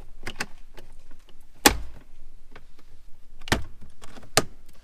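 Plastic steering-column trim bezel being pushed into place by hand, giving a string of sharp plastic clicks and knocks, the loudest a little under two seconds in and two more strong ones later.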